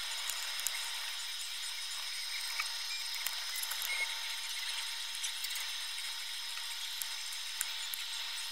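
Small screwdriver turning the tiny screws in a plastic calculator back case: faint scattered clicks and scrapes over a steady hiss.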